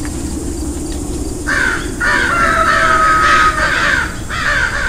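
Crows cawing over and over, a played-back sound effect for a cornfield-and-scarecrow scene. The caws start about a second and a half in, over a low steady hum.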